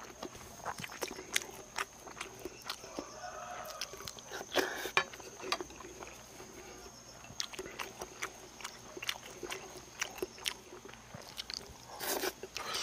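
Close-up eating sounds: chewing and biting with frequent sharp clicks and smacks, over a steady faint high-pitched whine.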